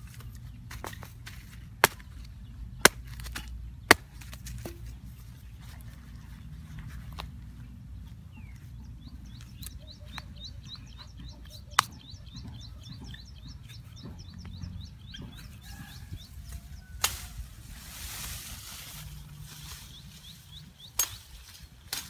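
Dry bark slabs and wooden sticks handled on grass: three sharp wooden knocks about a second apart, another knock near the middle, and a rustle of handling later. A fast run of high chirps repeats in the background for several seconds.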